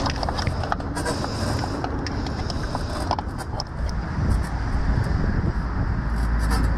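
Wind buffeting the microphone with a heavy, uneven rumble. Scattered clicks and knocks come from the mooring rope, clip and cleat being handled.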